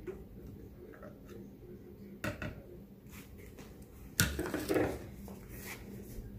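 Knocks and a short clatter of kitchen things being handled at the counter around the blender, one knock a little over two seconds in and a louder clatter about four seconds in, over a faint steady hum.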